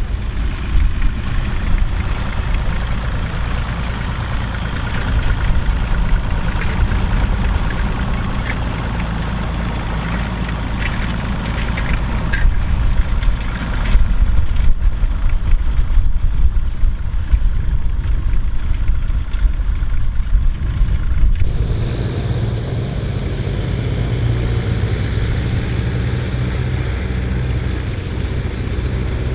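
A Ferguson tractor with a Selena four-wheel-drive conversion, its engine running steadily while pulling a disc plough. About two-thirds of the way through, the engine note changes abruptly to a stronger, more even hum.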